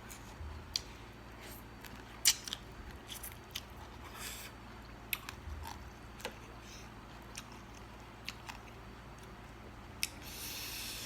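Close-up eating sounds of a person chewing and biting spicy seafood papaya salad: scattered sharp clicks and crunches, with a short hiss about four seconds in and a longer one near the end.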